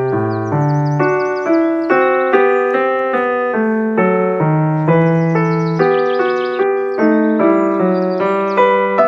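Background piano music, a new note or chord struck about twice a second.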